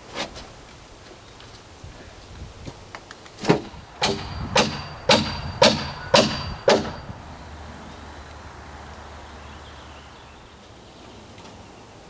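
Hammer driving a nail into deck framing lumber: seven sharp blows about half a second apart, with a slight metallic ring.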